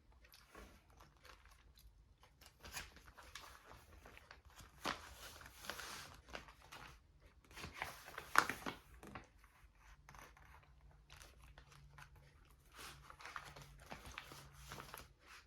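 Paper rustling and crinkling as the pages of a handmade journal are handled and turned. The rustles are soft and scattered, with a sharper crackle about eight seconds in.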